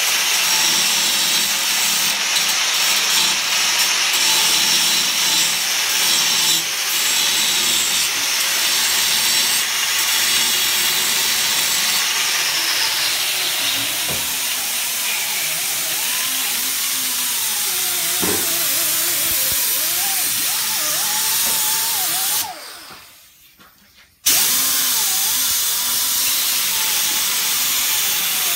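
Handheld angle grinder working against a car's steel underbody: a steady grinding whose pitch wavers as the tool is pressed into the metal. About three-quarters of the way through it is switched off and spins down, then starts again about two seconds later.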